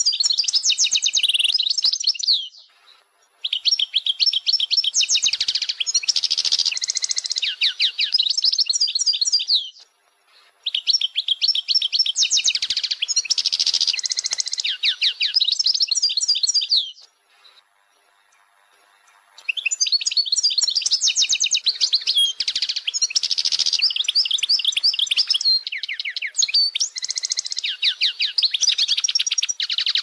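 Goldfinch singing: long runs of fast twittering and trilled notes, in four phrases separated by short pauses.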